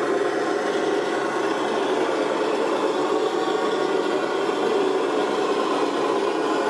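Radio-controlled scale construction machines running: a steady, even mechanical whir with no deep rumble and no sudden knocks.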